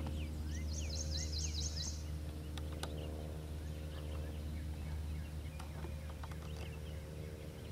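Wild birds calling: many short chirps throughout, with a quick run of about eight high notes about a second in, over a steady low hum.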